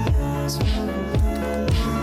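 Background music with a steady beat, about two beats a second, over held synth-like chords.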